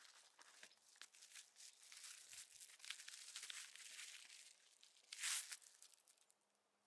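Quiet crinkling and crackling of a Reflectix foil-bubble insulation window cover as it is pressed and fitted into a car door's window frame, with one louder rasp about five seconds in.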